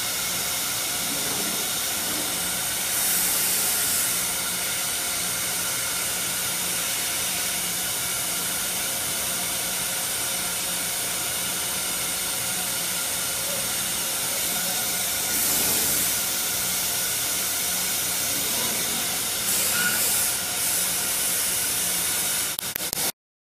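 Thermwood Model 67 CNC router running: a steady hiss over a low hum, swelling slightly a few times as the machine works.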